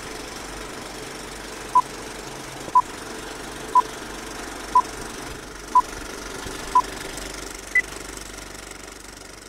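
Film-leader countdown: short beeps one second apart, six at the same pitch and a seventh at a higher pitch, over a steady film-projector clatter with crackle.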